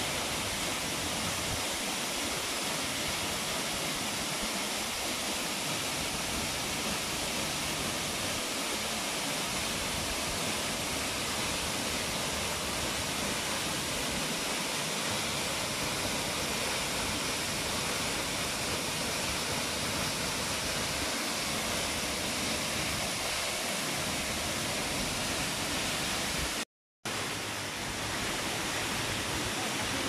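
Tall waterfall plunging into a rock pool: a steady, even rush of falling water that cuts out completely for a fraction of a second near the end.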